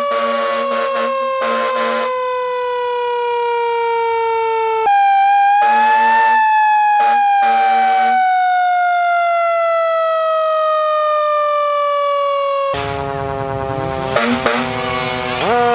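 A siren wails with a slow falling pitch, jumps up and falls again, and climbs back up near the end. Several short air-horn blasts sound over it in the first two seconds and again around the middle, and a noisy rush comes in near the end.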